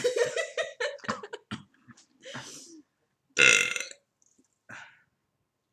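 A person belching on purpose: a long, drawn-out, pitched burp over the first second and a half, followed by shorter bursts, the loudest about three and a half seconds in.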